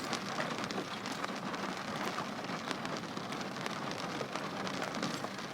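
Rain falling on a car, heard from inside the cabin: a steady hiss dotted with the small ticks of drops striking the body and glass.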